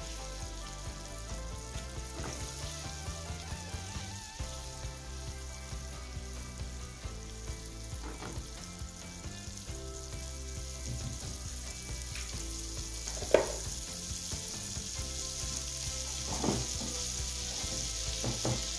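Margarine melting and sizzling in a hot non-stick frying pan, a steady frying hiss that grows a little louder toward the end, with a spatula spreading it across the pan at first. One sharp click about two-thirds of the way through.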